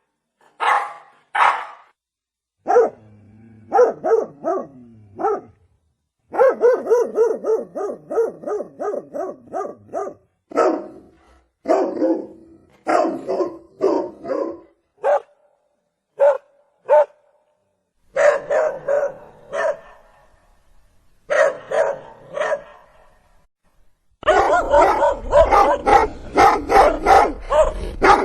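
Dog barking in repeated runs of short barks, with brief pauses between runs. Near the end it barks faster and more continuously, several barks a second.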